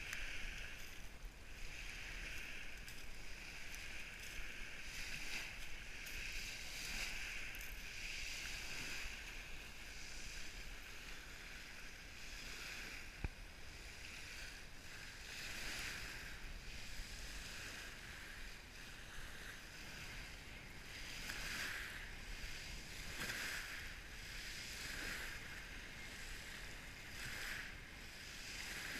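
Small waves washing up onto a pebble beach: a steady hiss that swells and fades every few seconds. A single sharp click comes about halfway through.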